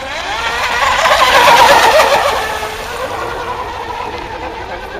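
Radio-controlled hydroplane boat's motor running at speed and passing by, rising in pitch and growing louder to a peak about two seconds in, then fading away.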